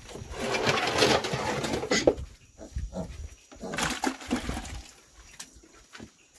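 Black pigs and piglets grunting and squealing, loudest through the first two seconds and again briefly around four seconds, mixed with wet scraping and splashing from a brush scrubbing a concrete feeding trough.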